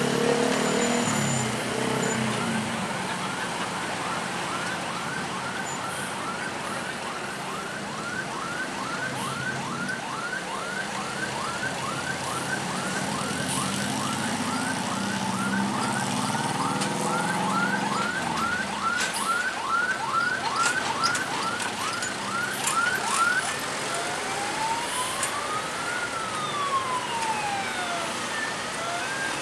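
Bus's electronic basuri (telolet) horn sounding a siren pattern: a short rising chirp repeated about twice a second for some twenty seconds, then slow rising-and-falling sweeps near the end.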